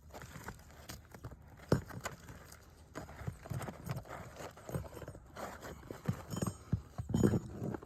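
Nails being pried out of brittle roof shingles: irregular knocks, taps and scrapes of a tool working under the shingles, with a sharper knock about two seconds in and a cluster of louder ones near the end.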